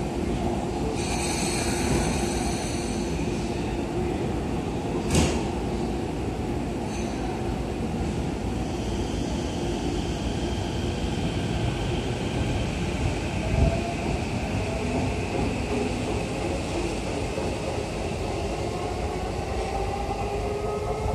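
Tokyo Metro 15000 series train at the platform: a short chime about a second in and a knock about five seconds in as the doors close. The train then pulls away, its VVVF inverter motor whine rising in pitch as it accelerates over the rumble of the wheels.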